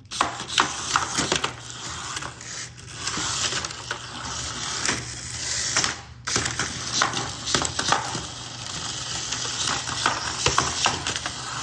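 Toy battle robots clattering against each other and the arena: rapid, irregular clicks, knocks and rattles that stop briefly about six seconds in.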